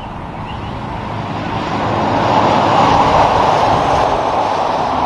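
Highway traffic passing close: a pickup towing a car-carrier trailer goes by with steady tyre and road noise. The noise swells over the first three seconds and then holds.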